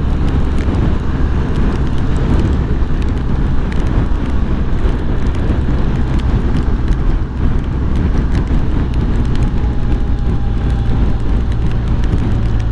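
BMW R1250 GS Adventure's boxer-twin engine holding a steady cruise at road speed, under a continuous rush of wind and road noise.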